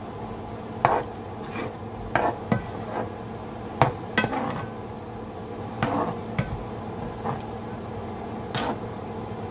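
A cooking utensil knocking and clinking against a skillet about nine times at uneven intervals as shrimp are stirred, over the steady hum of a fan.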